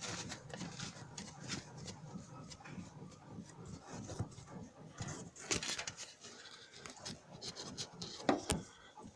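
Rear end of a Hyundai Elantra HD squeaking and creaking in an irregular run, from around the fuel tank. The owner traced it to worn rear suspension rubber bushings (silent blocks), possibly the eared ones, or to the fuel tank mounting.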